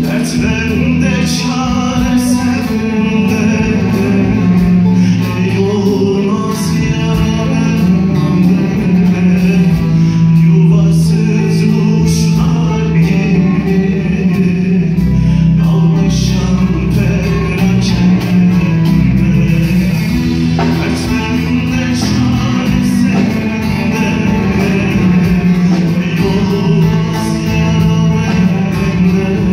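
Live Turkish folk song: a man sings over long-necked saz lutes plucked in a steady rhythm and a bass guitar.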